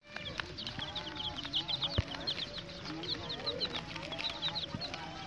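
A basket of young chicks peeping continuously: many short, high, falling peeps that overlap, several a second, with lower calls underneath. A single sharp knock about two seconds in.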